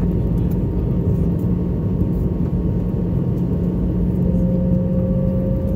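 Steady cabin noise inside a Boeing 717 on approach: rushing air and the rear-mounted Rolls-Royce BR715 turbofans running with a constant low hum. A second, higher steady tone joins about four seconds in.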